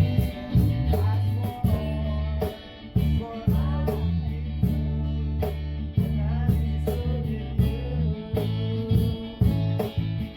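Acoustic band jam: guitar playing over sustained bass notes and a steady beat of about two ticks a second, with a wavering melody line above.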